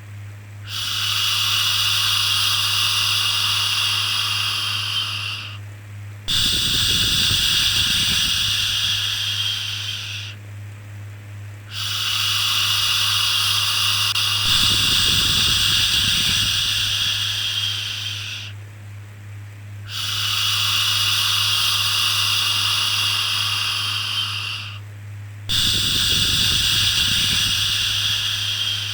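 Long, repeated 'shhh' shushing to soothe a baby. Each shush lasts about four to six seconds, with short breaks between them, over a steady low hum.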